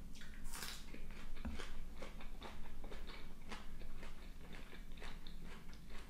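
Close-miked eating: a crisp bite into a raw green onion stalk about half a second in, then chewing with many small crunches.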